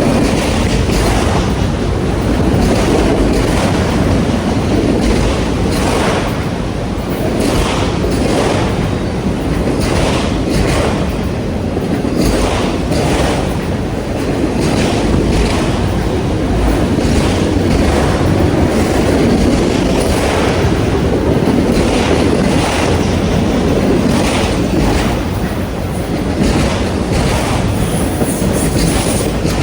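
Train cars rolling past with a steady rumble, their wheels clicking over the rail joints again and again.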